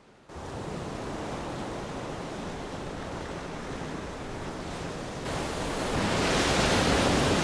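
Sea surf on a rocky shore, a steady wash of noise that comes in suddenly just after the start. From about five seconds in, waves break over the rock ledges and the surf grows louder.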